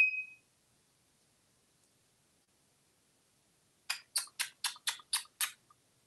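An African grey parrot's claws clicking on a bathroom vanity countertop as it walks: seven quick, even clicks about four a second, starting about two-thirds of the way in. A short high beep fades out at the very start.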